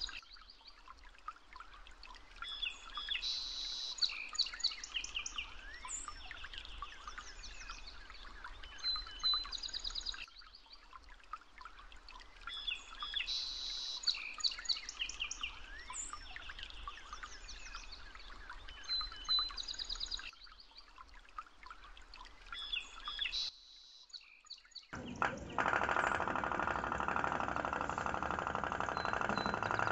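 Birds chirping, the same short stretch of song repeating about every ten seconds. Near the end, after a brief pause, a louder steady putter takes over: the toy tin pop-pop boat's flash-steam engine running, heated by its candle flame.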